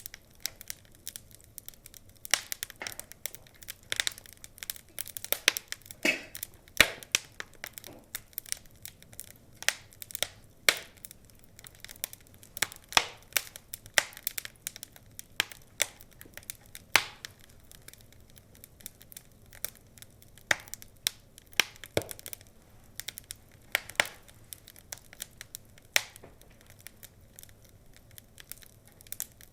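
Wood fire crackling: a continual scatter of irregular sharp pops and snaps from burning logs, a few louder than the rest.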